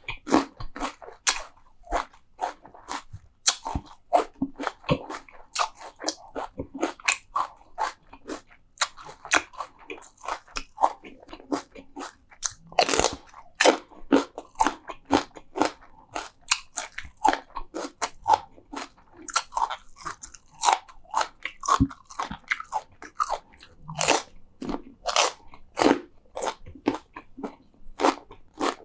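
Close-miked crunchy eating: a person biting into and chewing crisp food, a quick run of sharp crunches about two a second with softer wet chewing between them.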